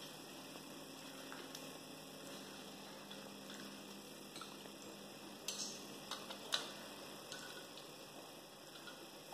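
Faint clicks and taps of plastic toy tools being handled, a few in quick succession about five and a half to six and a half seconds in, over a low steady hum.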